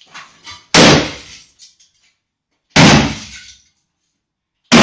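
A sledgehammer strikes an old cast iron bathtub three times, about two seconds apart, the last blow right at the end. Each blow is a loud clang that rings and dies away over about half a second as the enamelled iron is smashed apart.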